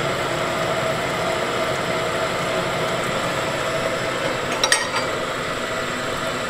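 Steady hum of shop machinery running, with a constant whine. A brief metallic clink sounds a little before five seconds in.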